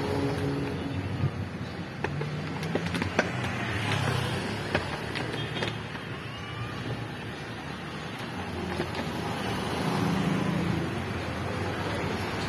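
Street traffic: a jeepney's engine pulls away near the start, then motorcycles and a small truck approach, their engines rising again near the end. A few sharp clicks sound in the first five seconds.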